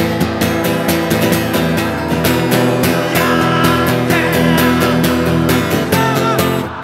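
Live worship music: an acoustic guitar strummed steadily while a man sings into a microphone over it.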